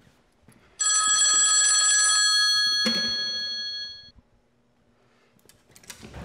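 Telephone bell of a wall-mounted payphone ringing in one long ring of about two seconds. A low knock comes about three seconds in, and the ringing then fades out over the next second.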